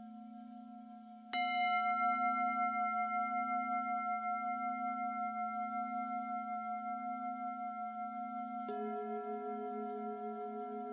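Bell-like ringing tones over a steady low hum that wobbles slowly: one sharp strike about a second in rings on and fades slowly, and a second, softer strike near the end adds a lower note.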